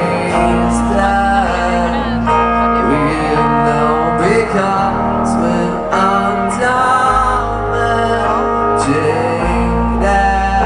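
Rock band playing a slow song: guitars, bass and drums, with some wordless male singing.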